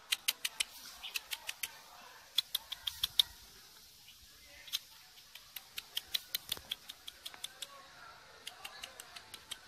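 Porcupine chewing food: quick runs of sharp, crunching clicks, several a second, broken by short pauses.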